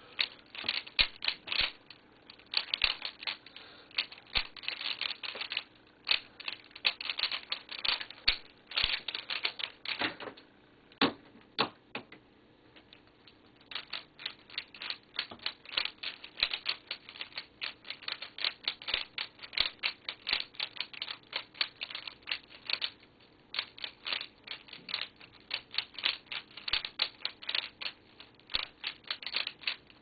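Rubik's Cube being turned fast by hand during speedsolving: a dense run of quick plastic clicks and clacks from the layers snapping round, with a short pause about twelve seconds in before the turning starts again.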